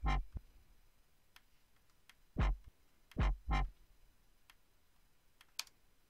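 Four brief notes of a synthesized 'womp' bass: one at the start, then three in quick succession about two and a half to three and a half seconds in. They sound as notes are drawn and clicked in the DAW's key editor, with a few faint mouse clicks between.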